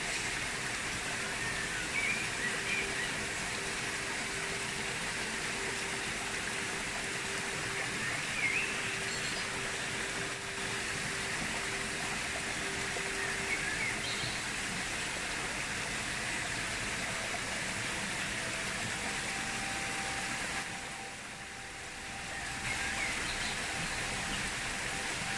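Stream water rushing steadily over rocks into a pool, with a few short bird chirps over it.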